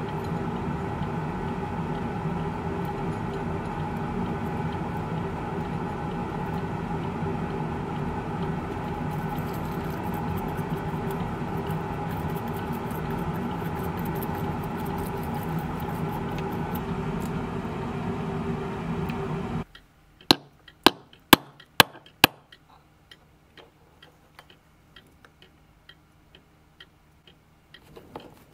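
A steady machine hum that cuts off suddenly about two-thirds of the way through. Then come about six sharp metallic clicks in quick succession, followed by fainter light ticks.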